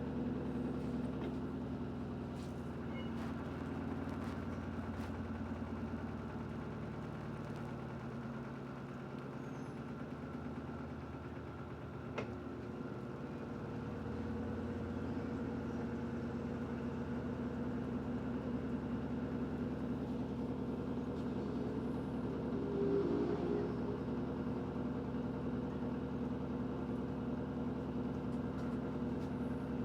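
Electrolux LED14 washing machine running its spin cycle: a steady motor hum with several held tones. It eases off a little for a few seconds before the middle, then settles back to a steady run.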